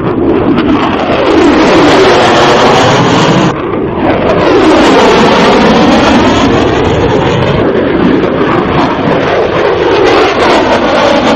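F-22 Raptor's twin Pratt & Whitney F119 afterburning turbofans on a loud low pass, with a steady jet rush that sweeps in tone as the jet moves past. The noise dips briefly about three and a half seconds in.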